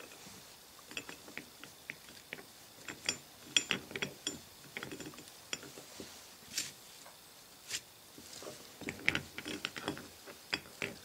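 Steel gears and parts of a 1957 Chevrolet truck Eaton limited-slip differential clicking and clinking as they are moved by hand inside the differential case, being re-meshed after sitting one tooth out of line. The clicks come irregularly, a few at a time.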